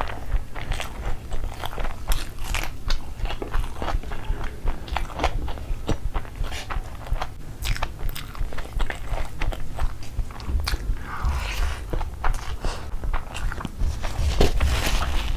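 Close-miked chewing of a mouthful of fried rice eaten by hand: a dense run of short, irregular wet clicks and smacks. Partway through, a fresh handful of rice is pushed into the mouth, and the loudest chewing comes near the end.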